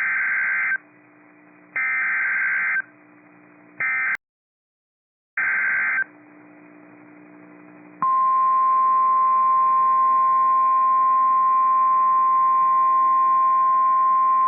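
Emergency Alert System tones on a NOAA weather radio issuing a severe thunderstorm warning: several short bursts of the SAME digital header's warbling data tones, broken once by a second of silence, then, about eight seconds in, the steady 1050 Hz weather radio warning alarm tone starts and holds.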